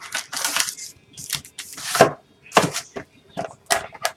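Trading-card box and its packaging being opened by hand: an irregular run of short tearing and rustling noises, several a second.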